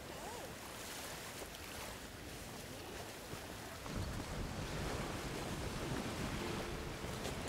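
Sea surf washing on a sandy beach, with wind. About four seconds in, low wind rumble on the microphone grows stronger.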